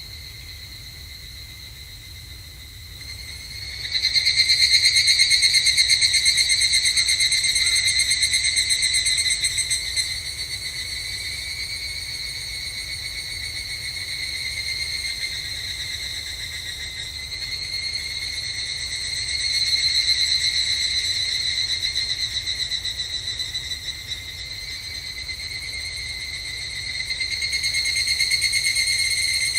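Higurashi (evening cicadas, Tanna japonensis) calling with a high, fast-pulsing ringing trill. It is faint at first, swells in loudly about four seconds in, then rises and falls in waves.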